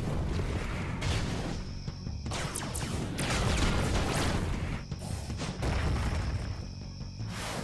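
Cartoon action sound effects of stone blocks crashing and booming, several sudden hits, over dramatic background music.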